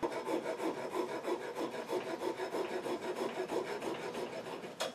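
Hand hacksaw sawing through a workpiece clamped in a bench vise: quick, even back-and-forth rasping strokes, several a second, that stop abruptly near the end.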